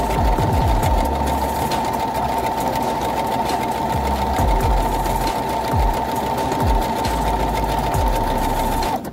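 Brother HC1850 computerised sewing machine stitching a built-in lettering pattern, its motor giving a steady whine with the needle knocking underneath. It stops abruptly near the end.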